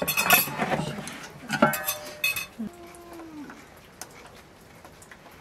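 Heavy lidded cooking pot set down on a metal serving tray with a clatter of metal on metal, then more clanking about two seconds in as the lid is lifted off. Two short pitched calls sound in the background.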